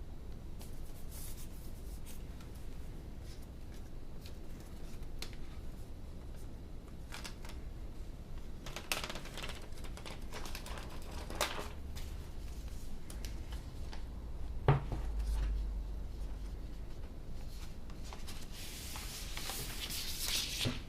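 Hands handling iPad Pro packaging and contents: soft rustles and scrapes with scattered small clicks, a longer bout of rustling about nine seconds in, a single sharp knock about halfway through, and more rustling near the end.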